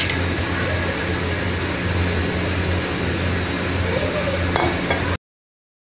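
Vermicelli and vegetables simmering in added water in a non-stick kadhai on a gas burner: a steady hiss with a low hum, after one clink of the spatula against the pan at the start. The sound cuts off abruptly about five seconds in.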